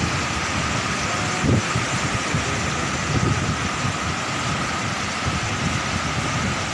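Big surf breaking and washing up a beach, a steady rushing noise, with wind rumbling on the phone microphone.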